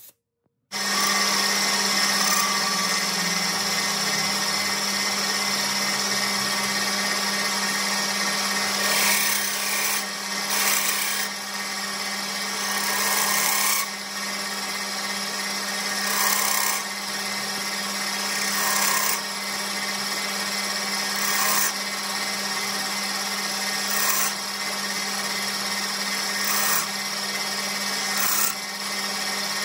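Metal lathe running steadily with a motor hum while a cutting tool plunges into a spinning aluminium screwdriver handle, cutting grip grooves. The cuts come as harsher bursts about every two to three seconds.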